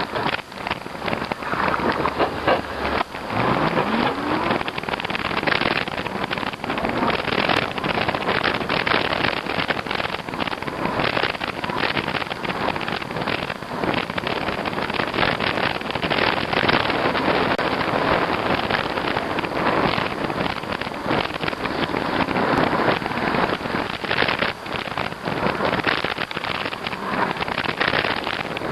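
Riding noise from an e-bike on a snowy street after a blizzard: wind buffeting the microphone over a dense crackle of tyres on snow and slush. A brief rising tone sounds about three seconds in.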